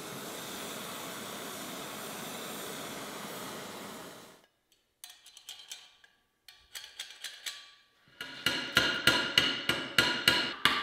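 Steady hiss of a torch heating the dagger's guard lug red-hot, cutting off after about four seconds. After a few faint clicks, a fast run of loud, ringing metallic strikes follows, about four or five a second.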